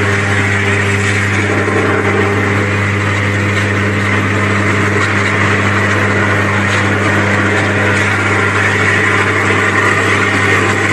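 High-voltage power arc burning continuously at a transmission-line fault: a loud, steady low buzz over a rough hiss.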